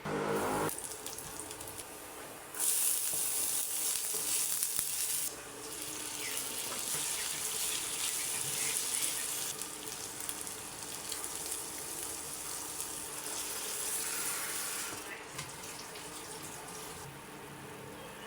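Kitchen tap running into a sink. The stream is strongest for about three seconds early on, then runs as a lighter stream that eases off near the end. A short pitched sound comes right at the start.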